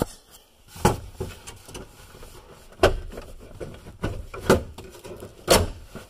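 Plastic dash trim panel on a Chevy truck being pulled off by hand, its clips snapping and the panel knocking: four sharp cracks about one to two seconds apart, with smaller clicks and rubbing between.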